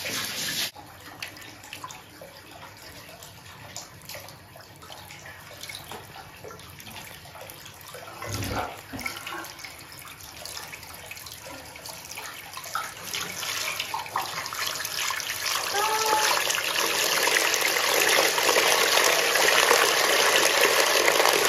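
Hot spring water splashing and lapping in a wooden outdoor bath as a bather moves in it. The rush of water grows steadily louder over the last several seconds.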